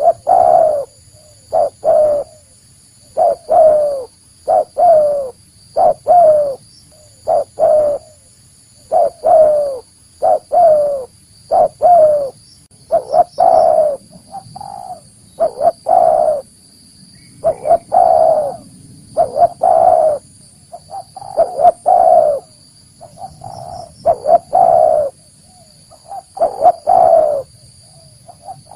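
Spotted dove (tekukur) cooing over and over: short groups of low, rolling coo notes repeated about every second or so, the call used as a lure to draw wild doves in.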